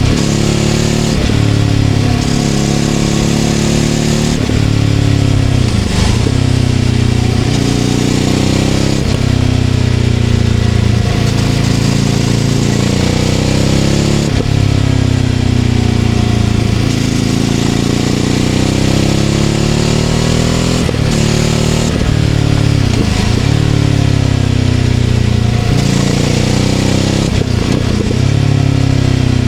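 Ducati Scrambler 800's air-cooled L-twin engine, breathing through a Leovince LV-10 aftermarket exhaust, pulling along the road. The revs climb and fall again and again, with several sharp dips in pitch.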